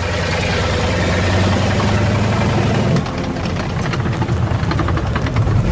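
Heavy tank engine running, deep and steady. About three seconds in it dips and a fast rattling, like tracks clattering, joins it.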